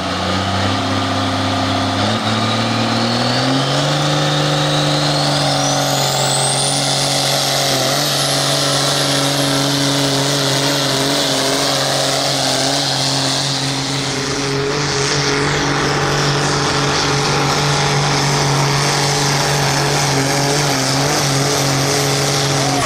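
Diesel pulling tractor's engine at full throttle, dragging a weight-transfer sled. The engine note climbs over the first few seconds and then holds steady under load, with a high whine that rises and then holds.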